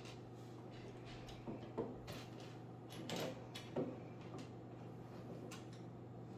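Plastic Lego pieces being handled and fitted together: scattered small clicks and clatters, a few louder knocks about two and three and a half seconds in, over a steady low hum.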